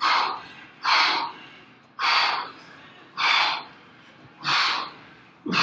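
A man breathing hard from exertion, one loud breath about every second, in time with alternating punches thrown from a plank position.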